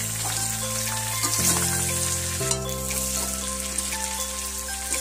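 Pork pieces and sliced onion sizzling in hot oil in a kadai, with a spatula stirring and scraping now and then. Steady background music chords play underneath.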